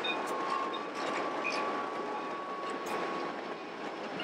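White Pass & Yukon narrow-gauge train rolling past as its diesel locomotive gives way to the passenger coaches: steady rolling rumble of the wheels on the rails with scattered sharp clicks. A steady wheel squeal sounds through the middle.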